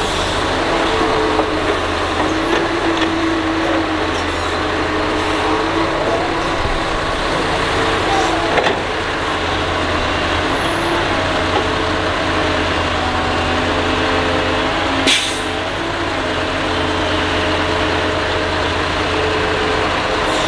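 Doosan DX225LC excavator's diesel engine working under load as it digs and swings, its pitch stepping up and down with the hydraulic demand. A brief sharp hiss comes about fifteen seconds in.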